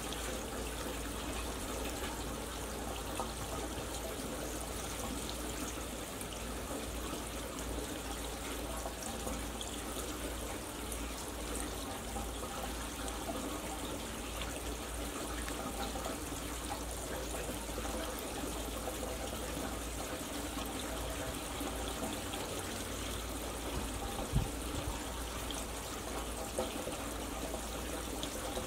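Steady rushing, trickling noise like running water, with one short knock about twenty-four seconds in.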